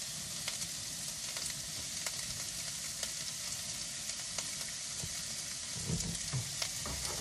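Vegetables sizzling steadily in a frying pan on a gas hob, with a spatula clicking and scraping against the pan as they are stirred. A few dull knocks come about six seconds in.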